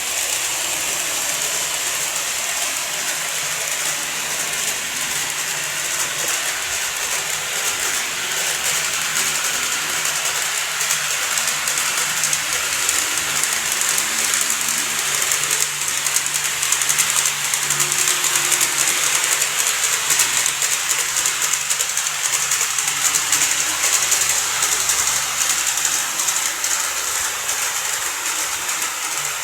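N-gauge model train running on layout track: a steady hiss of wheels and a small motor, with fine rapid clicking and a low hum that strengthens in the middle.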